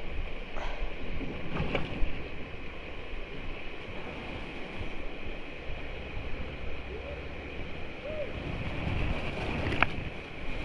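Creek water rushing around a kayak, with wind buffeting the microphone and two sharp knocks, one about two seconds in and one near the end.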